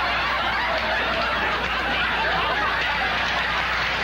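Studio audience laughing, a long steady wave of laughter with no break.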